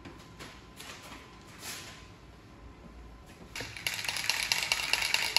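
Faint rustling, then about three and a half seconds in a rapid, continuous rattling starts: an aerosol spray can of primer being shaken, its mixing ball clattering inside, just before spraying.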